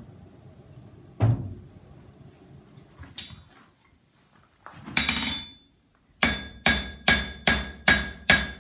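Blacksmith's hammer striking glowing hot iron on an anvil. There is one ringing blow about three seconds in, then a steady run of ringing blows, about two and a half a second, from about six seconds in. A dull knock comes about a second in.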